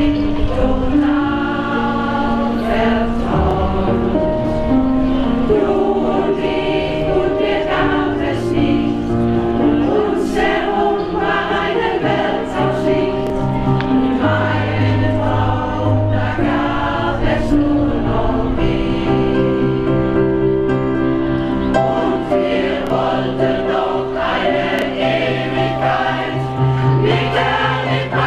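A vocal group singing in harmony over a musical accompaniment with a steady bass line.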